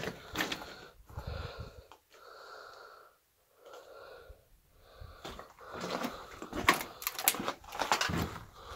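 A person breathing heavily close to the microphone, a string of slow breaths in and out, with scuffs and knocks of footsteps on rock and timber in the second half.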